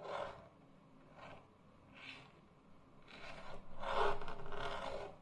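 Superb parrots (Barraband's parrots) making soft, raspy chattering sounds. There are three short bursts, then a longer, louder one from about three seconds in to near the end.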